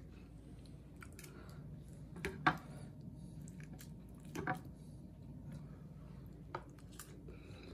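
Knife and fork cutting into tender stewed beef ribs on a plate: quiet, with a few brief clinks and scrapes of cutlery against the plate.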